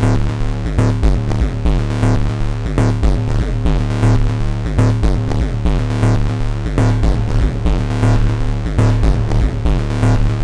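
Elektron Analog 4 analog synthesizer playing a looping sequenced pattern, its four tracks set to feedback and neighbor-track oscillators and run through its shared effects. A steady low drone sits under repeated sharp hits whose pitch sweeps downward, several a second, in a dense, harsh electronic texture.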